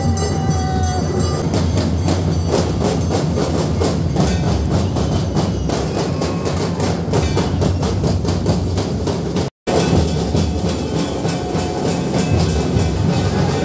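Dhol-tasha procession drumming: fast, steady, close-packed drum strokes. It cuts out for a moment about nine and a half seconds in.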